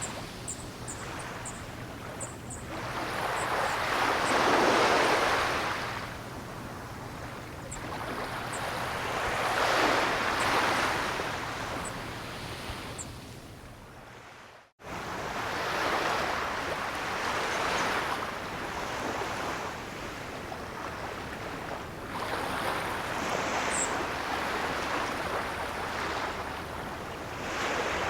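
Ocean waves breaking and washing up the shore in slow surges, each swell rising and fading over several seconds. The sound cuts out briefly about halfway through.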